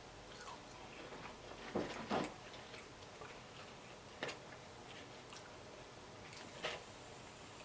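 Close-up eating sounds: a few short, sharp clicks and smacks from chewing and biting chicken wings, the loudest a quick pair about two seconds in, with single ones later.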